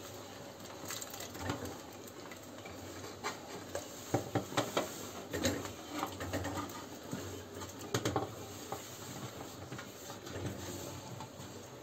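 Small yüksük dumplings pushed by hand across a metal baking tray and dropped into a pot of broth: scattered light clicks, scraping and rattling, with busier clusters about four to five seconds in and again around eight seconds.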